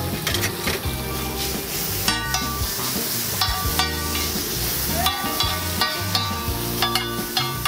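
Paneer and vegetables sizzling on a flat griddle while a metal spatula scrapes, chops and taps against the plate in quick, irregular clatters.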